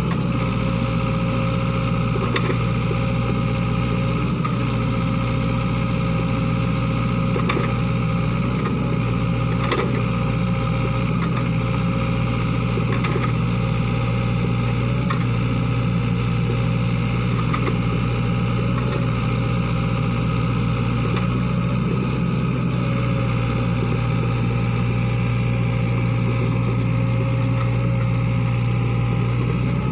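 Sany SY55C mini excavator's diesel engine running steadily as the machine digs a drainage ditch, with faint knocks every second or two as the bucket and arm work.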